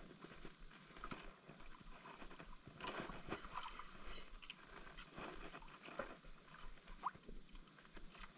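Daiwa spinning reel being cranked by hand during a retrieve: faint, irregular small clicks and scratches from the reel, with a couple of sharper ticks near the end.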